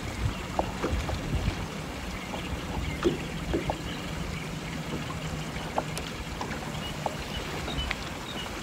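Wind buffeting the microphone and water lapping against a small fishing boat, with a low steady hum underneath and a few light clicks from handling rod, reel and tackle.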